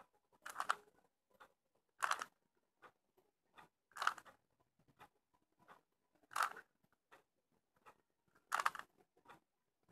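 Rubik's Cube layers being turned by hand: short bursts of plastic clacking and rattling, the louder ones about every two seconds, with lighter single clicks in between.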